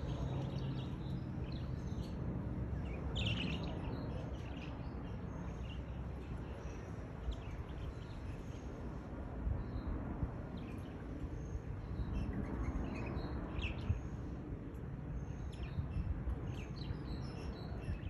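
Budgerigars chirping in short, scattered calls, over a steady low background rumble.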